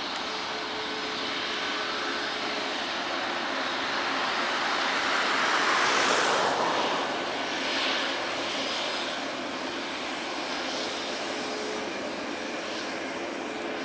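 Boeing 737-8 MAX's CFM LEAP-1B turbofan engines at taxi power as the airliner taxis past: a steady jet hiss and whine that swells to its loudest about six seconds in as it goes by, then eases back.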